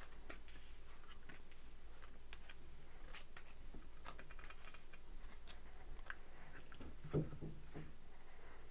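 Tarot cards being dealt by hand from the deck onto a table: faint scattered clicks and short soft slides of card stock over a low steady hum, with one brief low sound about seven seconds in.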